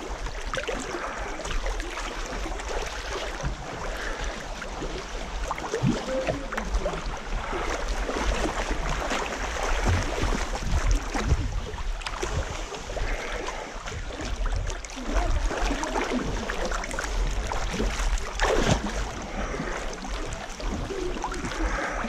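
River water splashing and sloshing, with a steady low wind rumble on the microphone.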